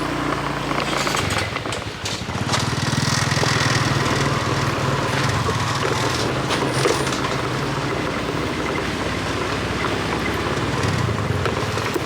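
Small motorcycle engine running while riding, with wind and road noise; the engine note shifts and gets louder about a second in.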